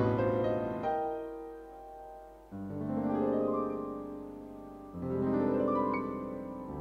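Background piano music: slow, held chords, a new one struck about every two seconds.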